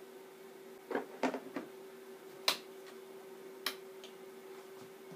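Handling of a Tefal ActiFry air fryer's plastic bowl and parts while potato sticks are loaded: a few soft knocks about a second in, then two sharp plastic clicks, over a faint steady hum.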